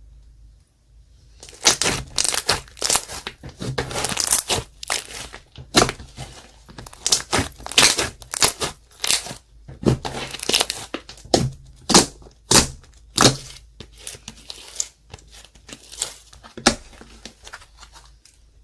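Clear slime with makeup and glitter mixed in being kneaded and stretched by hand, giving off many irregular sharp pops and crackles that start about a second in.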